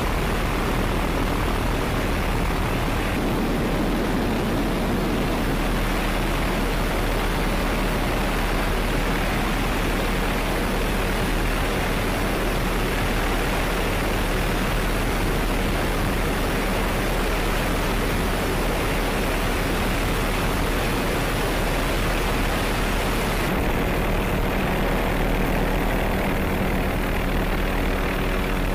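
Steady helicopter engine and rotor noise: an even rushing sound over a constant low hum. Near the end the sound changes and a few faint steady tones come in.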